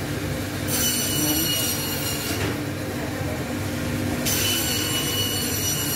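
Steady ambience of a busy indoor market hall: a dense hum with faint crowd noise, and a thin high whine that cuts in about a second in, drops out midway and returns near the end.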